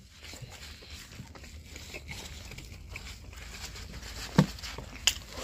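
Close-miked chewing of food, with soft wet mouth clicks and light paper crinkling, and a short low vocal sound about four seconds in.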